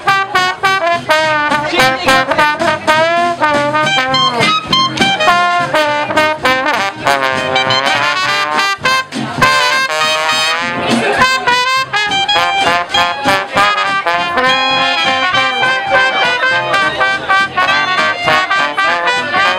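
Small trad-jazz band of trombone, trumpet and clarinet playing swing, the horns' wavering melody lines swooping up and down in pitch about halfway through.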